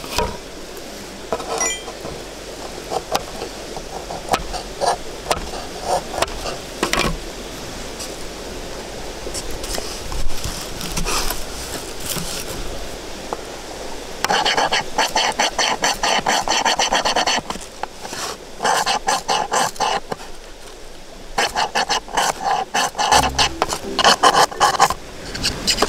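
A knife scraped hard and fast along a ferrocerium fire-starting rod, throwing sparks onto a board of fine wood shavings to light a fire. It comes in several spells of rapid strokes through the second half, after lighter scattered scrapes and taps in the first half.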